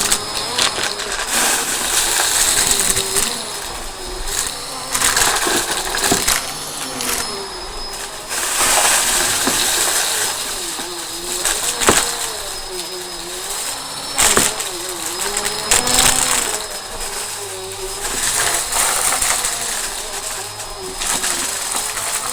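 Vacuum cleaner running fast over the floor: a steady high motor whine, and a lower hum whose pitch dips and recovers again and again. A few sharp clicks come through, most plainly about 6, 12 and 14 seconds in.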